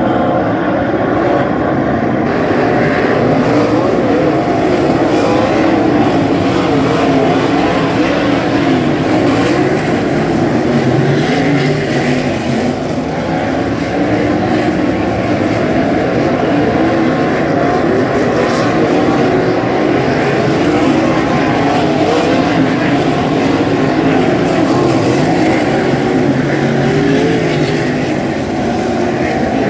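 A field of 360 winged sprint cars racing on a dirt oval, their methanol-burning V8s at full throttle, with many overlapping engine notes rising and falling as the cars go round.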